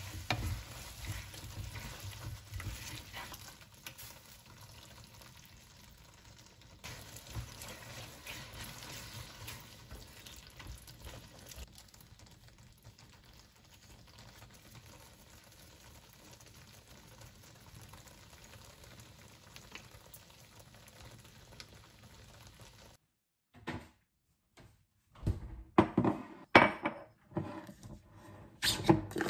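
Wooden spatula stirring and tossing spaghetti through a simmering cream sauce in a frying pan, with soft sizzling that grows fainter about halfway through. Near the end, sharp knocks and clicks as a plastic lid is twisted and pulled off a glass pickle jar.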